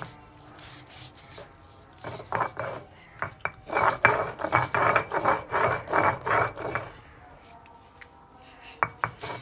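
Stone roller grinding soaked urad dal on a flat grinding stone: rhythmic back-and-forth rubbing and scraping of stone on stone through the wet lentils, about three strokes a second. It is loudest in the middle and eases off near the end.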